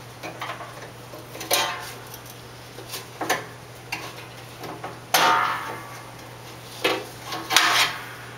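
Metal tools and parts clinking and clanking against the mower's steel frame in a handful of separate knocks with short ringing, the loudest a little over halfway through, over a steady low hum.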